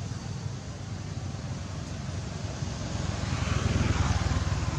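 A motor vehicle's engine running nearby, a steady low rumble that grows louder about three seconds in.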